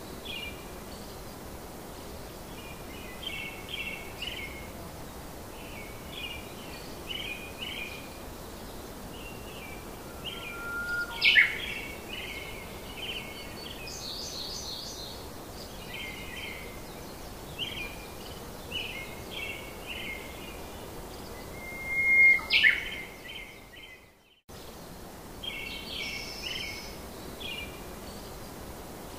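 Small birds chirping in short repeated phrases over a steady hiss, like a recorded nature-ambience track. There are two louder, sharper calls, about 11 and 22 seconds in, and the sound cuts out briefly about 24 seconds in before starting again.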